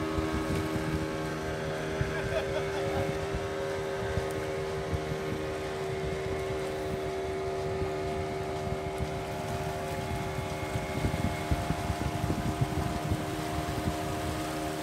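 Boat engine running with a steady drone, with wind buffeting the microphone, gustier near the end.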